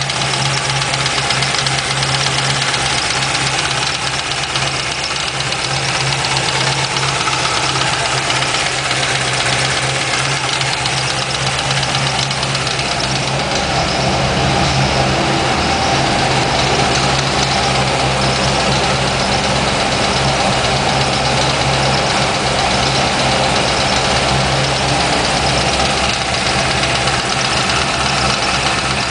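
2004 Corvette Z06's LS6 V8 idling steadily with a rapid, even ticking over the engine note, the tick the owner is trying to track down. It gets a little louder about halfway through.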